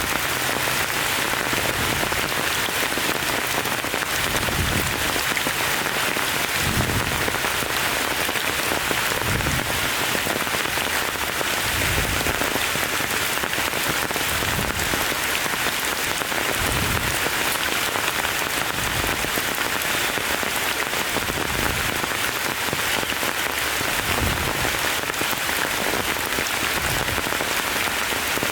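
Steady rain falling, an even hiss throughout, with soft low thumps every two to three seconds.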